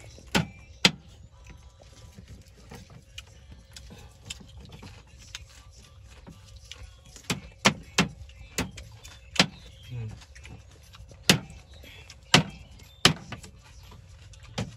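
A cleaver chopping roast duck on a round wooden chopping board: two sharp chops near the start, then a run of about nine more at irregular intervals in the second half.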